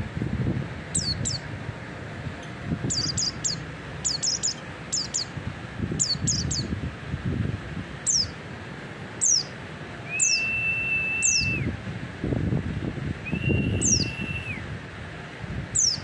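Pleci (white-eye) chirping: short, thin, high calls that slide down in pitch, often two or three in quick succession, repeated throughout. Twice, about ten and thirteen seconds in, a longer level whistled note sounds, and a low rumble comes and goes underneath.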